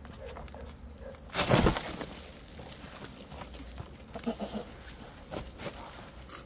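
Scraping, rustling and knocking as a honey hunter digs and pulls comb out of a wild bee nest in an earth bank, with one loud rough scrape about one and a half seconds in and scattered short clicks and scrapes after.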